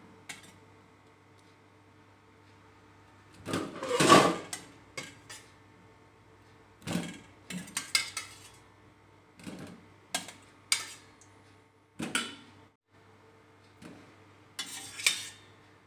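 Metal spoon clinking and scraping against a stainless steel pot and bowl while cooked meat pieces are scooped out of the broth. The knocks come in scattered separate bursts, the loudest cluster about four seconds in.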